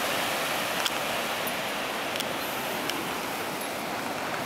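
Ocean surf washing steadily onto the beach, with a few light clicks in the first three seconds.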